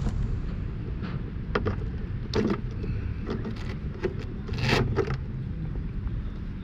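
Hands working in the hull of an RC speedboat. A scattering of short plastic clicks and scrapes comes as the lipo batteries are unplugged and lifted out, with a brief flurry near the end. A steady low rumble runs underneath.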